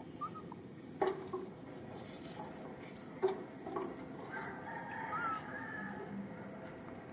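Short high animal calls, then one held call of about a second and a half after the middle, over outdoor background noise, with two sharp knocks about a second and three seconds in.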